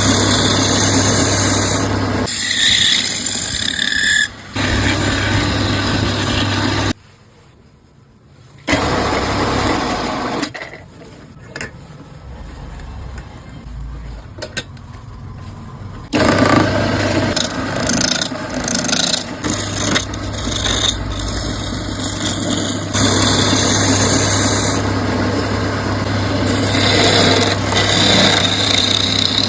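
An electric power tool shaping wood, with a steady motor hum under scraping, cutting noise and a squeal. It cuts out for about two seconds some seven seconds in and runs quieter for a stretch in the middle.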